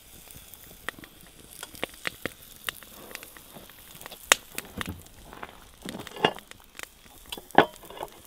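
Waffle batter sizzling on a hot cast iron waffle iron over a wood-fired rocket stove, with a steady hiss and scattered pops and crackles. Near the end there is a louder knock as the cast iron waffle iron is closed.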